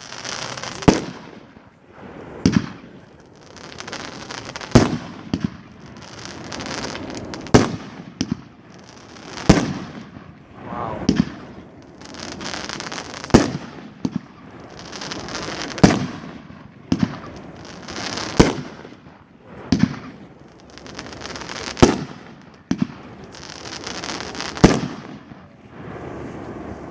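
A World Class 'Asian Sensation' 500-gram firework cake firing its shots. There are about a dozen loud reports, roughly every two to three seconds, with weaker pops between them, and each report is followed by a second or two of hissing.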